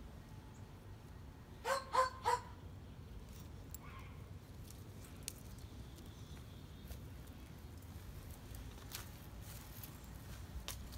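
A dog gives three quick, high barks about two seconds in, then faint scattered ticks of paws scampering on patio pavers.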